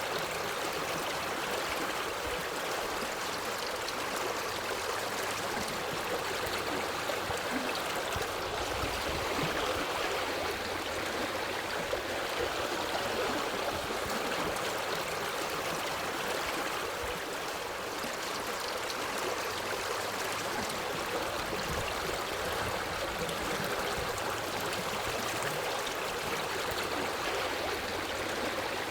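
Water stream flowing steadily, a continuous even rush and babble of water with no breaks.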